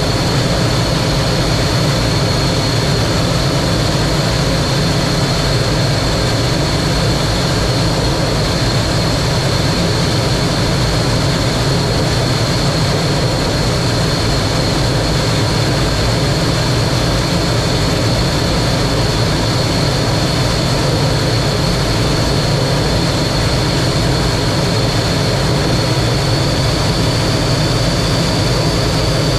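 T-33 jet trainer's turbojet engine running steadily: a constant loud rush of engine and air noise under a steady high whine, which rises slightly near the end.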